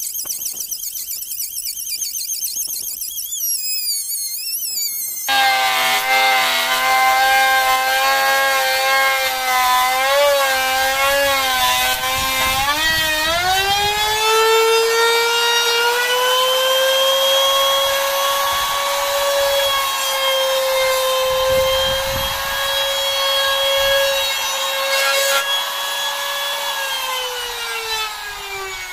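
Modern-brand electric trim router cutting a profile along a wooden board. A high, wavering whine for the first five seconds, then abruptly a deeper motor whine that wavers as the bit bites, rises and holds steady from about halfway, and sinks in pitch near the end as the motor winds down.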